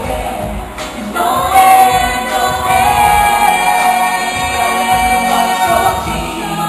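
Live pop song performed by a group of singers on handheld microphones with musical accompaniment, carried through a large hall's sound system, with long held sung notes through the middle.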